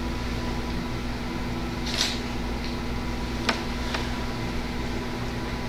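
Steady room hum: a constant low drone with a faint steady tone, broken by a brief soft hiss about two seconds in and two faint clicks a little later.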